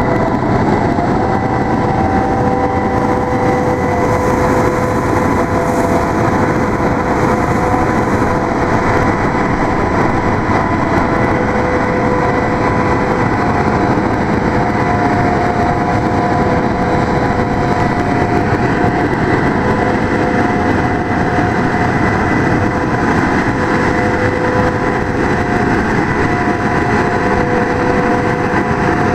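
CAT 660 water truck running while its PTO-driven water pump sprays from the spray heads: a steady loud rush of engine and spraying water, with faint steady whining tones over it.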